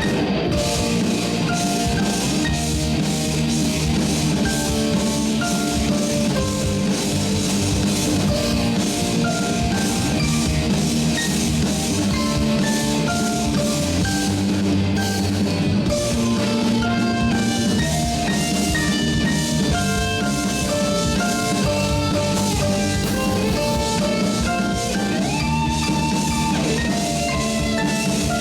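Rock band playing: a drum kit keeps a steady beat under layered, picked electric guitar melodies, with no singing.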